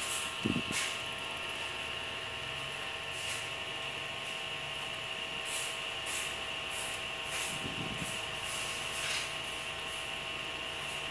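Steady electrical hum and hiss of a computer recording setup, with several fixed tones. Short computer-mouse clicks come every second or so as the settings in an on-screen dialog are changed, and there is a brief low thump about half a second in and again near eight seconds.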